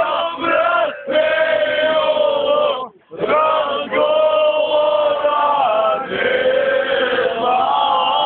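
A man singing loudly in long held notes, with a brief break for breath about three seconds in.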